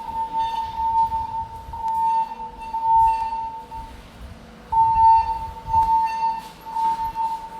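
Building fire alarm evacuation signal sounding through the alarm speakers during a smoke detector test: a steady high tone that pulses in level and breaks off for about a second midway.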